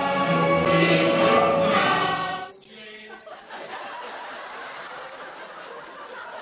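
Mixed choir of girls and men singing a sustained passage, cut off abruptly about two and a half seconds in. After the cut, fainter voices and chatter in a large room.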